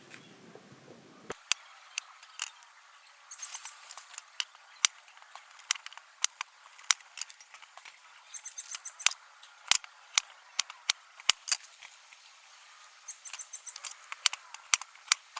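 Scattered sharp clicks and taps of cooking utensils being handled during food preparation, with short bursts of high bird chirps several times in the background.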